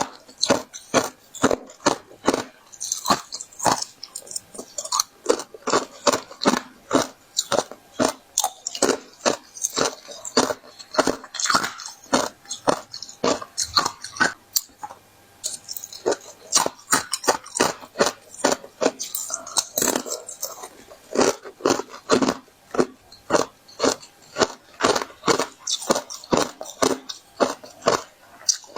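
A person biting and chewing thin, flower-shaped sheets of crisp ice close to the microphone: rapid, sharp crunches, several a second, with a brief pause about halfway through.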